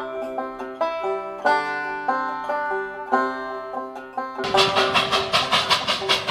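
Plucked banjo music in a country or bluegrass style. About four and a half seconds in, a narrow-gauge steam locomotive's exhaust comes in over the music with a quick, even beat of hissing chuffs, and the banjo carries on faintly beneath it.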